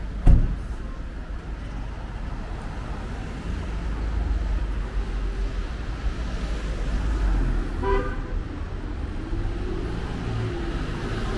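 Road traffic rumbling along a town high street, with a sharp thump just after the start and one brief car horn toot about eight seconds in.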